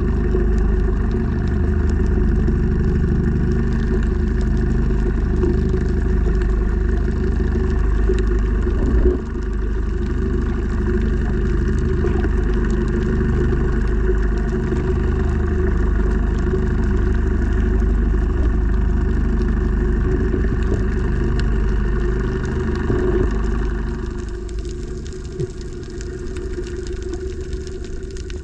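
Steady engine hum heard underwater, with one knock about nine seconds in. Near the end the hum changes and becomes quieter.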